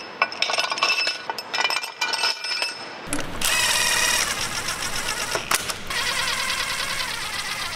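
Metal clinks of bolts and tools on a bare engine cylinder head, then, about three seconds in, a cordless power driver spinning a long socket extension to run down the cylinder head bolts. It runs in two spells with a short break midway.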